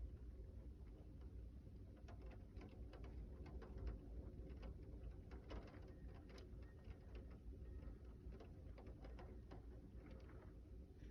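Small hail and raindrops starting to hit: faint, scattered, irregular sharp ticks that begin about two seconds in and grow denser, over a low steady rumble.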